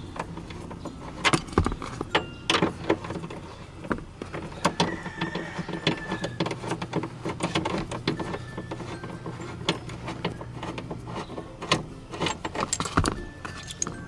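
Ratchet wrench and socket clicking and clinking in irregular runs of sharp metallic clicks while undoing a car seat-belt floor anchor bolt.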